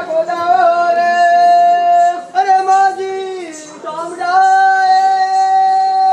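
A high voice singing a Rajasthani Gavri folk song in long held notes: one note held for about three seconds that slides down a little after halfway, then another long note that begins about four seconds in and falls away at the very end.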